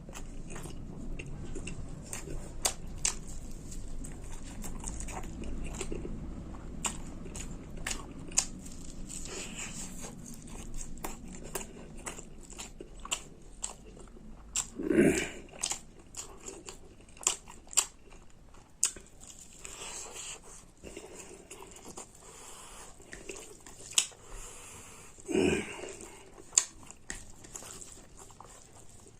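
Close-miked mukbang eating sounds: a person chewing pork curry and rice, with many small wet clicks and smacks. Two short, louder low sounds come about fifteen and twenty-five seconds in.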